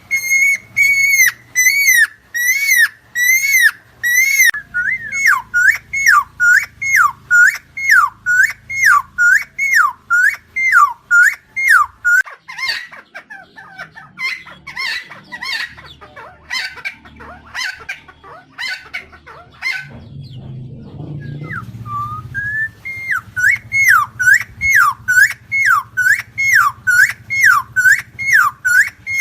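Helmeted friarbird (Philemon buceroides) calling: a steady series of dipping-and-rising notes about two a second, breaking in the middle into a harsher, more varied chatter for several seconds, then a brief pause before the steady series picks up again.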